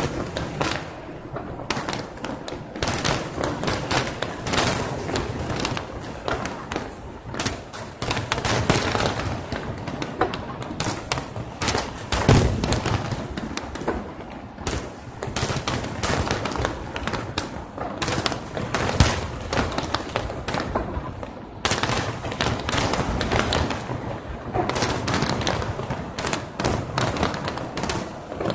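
Aerial fireworks shells bursting in a rapid, continuous barrage of bangs, with the loudest booms about twelve and nineteen seconds in.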